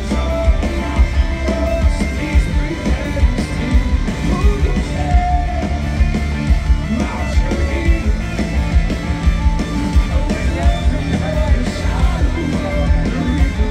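Live rock band playing over a large outdoor PA, heard from within the crowd: electric guitars, heavy bass and a steady drum beat, with a voice singing. The sound is bass-heavy, with the low end strongest.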